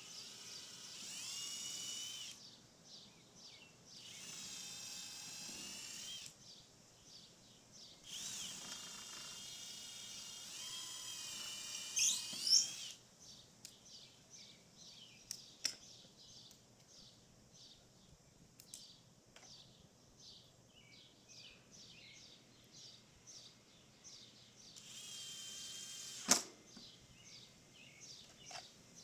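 Cordless drill running in four bursts of a couple of seconds each, a high whine that rises in pitch at the end of the longest burst, with a sharp knock just after the last. Small birds chirp in the pauses.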